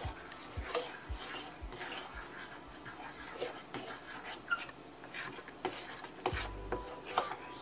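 Metal fork stirring thick pancake batter in an enamel bowl, the tines clicking and scraping irregularly against the bowl. A short low hum comes in about six seconds in.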